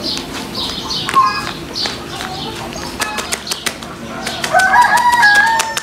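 A rooster crows once, starting about four and a half seconds in, with one long call that rises, holds and falls. Small birds chirp repeatedly around it.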